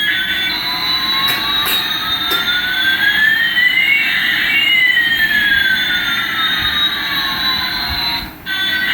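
Electronic jet-engine sound effect from a toy airplane's sound chip: a steady hiss with two tones gliding, one rising and one falling, crossing midway. It cuts off near the end.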